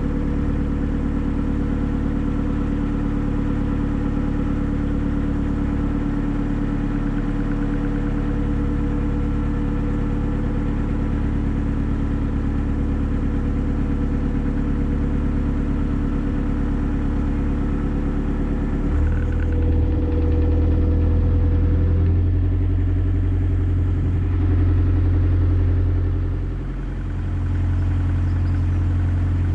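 A narrowboat's engine running steadily while cruising. About two-thirds of the way through the engine note changes and grows a little louder, with a short dip near the end.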